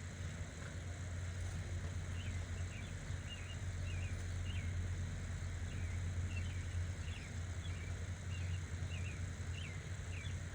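Small birds chirping in quick, short, repeated calls over a steady low hum.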